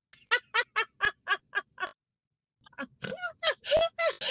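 A woman laughing hard, a quick string of "ha" bursts about four a second. The sound then drops out completely for about a second before more laughter comes back.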